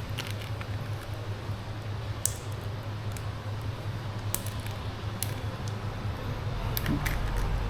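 Scattered light clicks and handling noises over a steady low hum.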